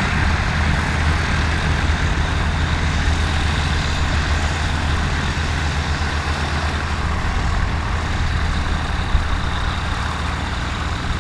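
Heavy engine of an aircraft tow tug running steadily at low revs while moving a Boeing 727. There is one short knock about nine seconds in.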